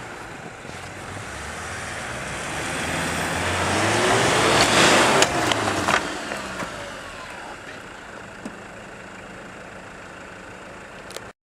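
A vehicle engine revving harder and louder to a peak about four to five seconds in, with a rushing noise over it and a few sharp knocks near the peak, then easing back to a steady lower running.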